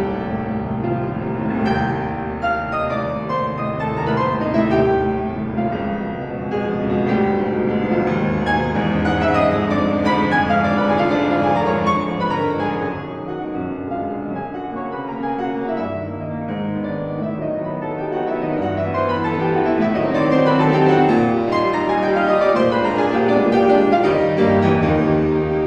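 Instrumental keyboard music, many quick runs of notes over held lower notes, playing steadily throughout.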